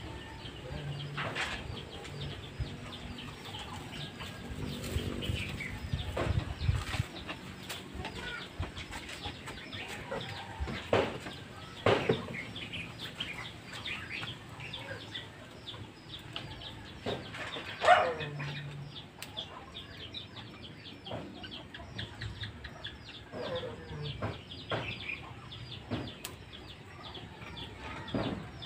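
Backyard chickens clucking, with small birds chirping rapidly throughout and a few louder sharp knocks or scrapes from handling the bound monitor lizard.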